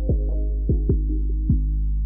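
Background music: a trap beat with a deep, sustained bass and four kick drum hits that slide sharply down in pitch.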